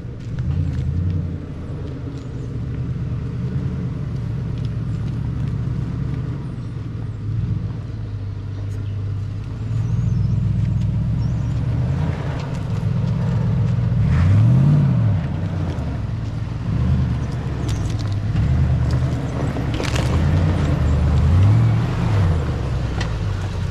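Four-wheel-drive vehicle's engine running steadily while driving, its revs rising and falling briefly twice in the second half.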